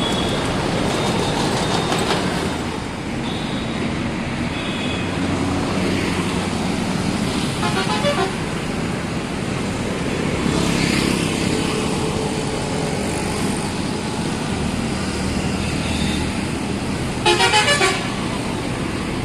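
Bus horn sounding in short pulsing blasts over steady traffic noise: a fainter stuttering burst about eight seconds in, and a loud, rapid blast of about four quick pulses near the end.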